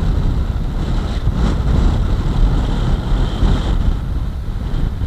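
Strong wind buffeting the microphone in heavy gusts, over the rush of sea waves breaking below.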